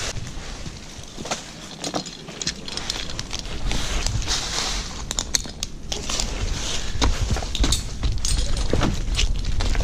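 A tree climber scuffing and scraping against cottonwood bark while working up the trunk: irregular scrapes, crackles and sharp clicks of hands, boots and rope on the bark, over a low rumble of camera handling.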